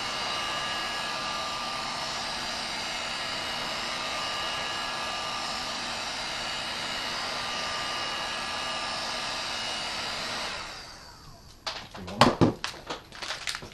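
Heat gun blowing steadily with a faint whine, switched off about ten and a half seconds in and running down, followed by a few sharp clicks and knocks.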